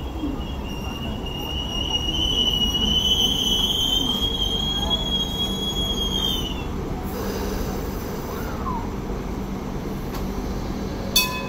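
Hong Kong MTR Light Rail train running into a stop, its steel wheels giving a high squeal that climbs slightly in pitch and then falls away and stops about two-thirds of the way through, over a steady low rumble. A single sharp metallic clank with a short ring comes near the end.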